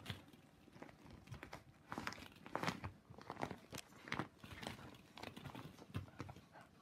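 Plastic ball-pit balls clattering and a plastic paddling pool crinkling as cocker spaniel puppies scramble and tug about in it: irregular clicks and rustles.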